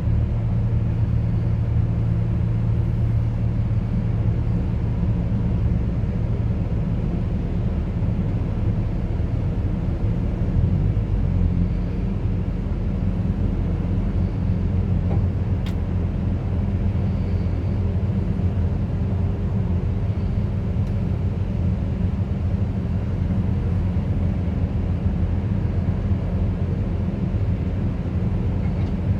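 Diesel engine of a Bobcat RTH 70.260 rotating telehandler running steadily, a deep even drone that holds without a break.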